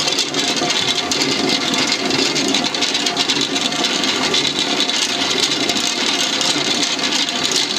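Millstones of a Norse water mill turning and grinding grain: a steady grinding noise with a fast rattle, as the spinning runner stone draws grain from the wooden hopper into its eye.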